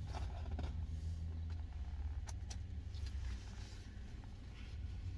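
Low, steady hum of a car's idling engine heard from inside the cabin, with a few faint clicks and rustles scattered through it.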